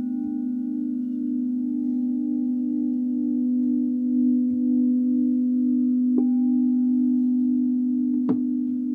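Frosted quartz crystal singing bowls ringing with a steady low hum that pulses slowly, with fainter overtones above it. About six seconds in a bowl is struck, adding a higher note, and near the end there is a sharp tap.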